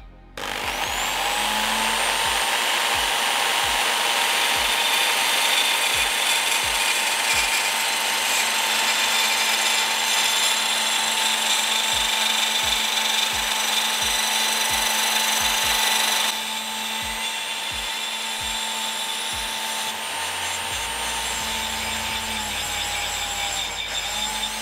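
Electric drill spinning up and running steadily, turning a ridged brass vape-mod tube in its chuck while a flat file rasps against the spinning tube to grind the paint off its crests. The sound gets a little quieter about two-thirds of the way through, and the drill slows briefly near the end.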